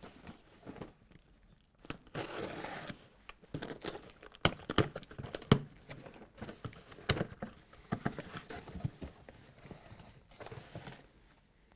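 A shrink-wrapped cardboard shipping case being opened with a box cutter: plastic wrap crinkling and tearing, cardboard rustling, and a run of sharp clicks and knocks as the box is handled and its flaps pulled open.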